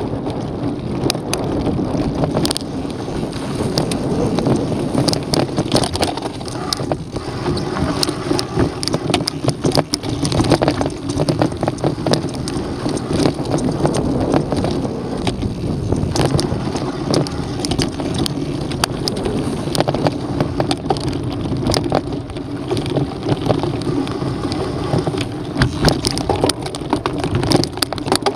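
Mountain bike riding over a dirt and gravel trail: tyres crunching over the ground, with frequent sharp clicks and rattles from the bike and wind buffeting the microphone.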